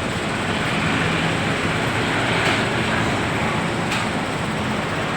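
Steady vehicle engine rumble with road traffic noise, with a couple of faint clicks in the middle.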